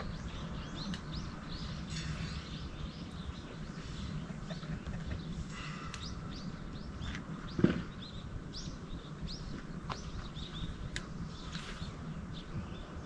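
Small birds chirping and calling in many short notes over a steady low background rumble, with one sharp knock about seven and a half seconds in.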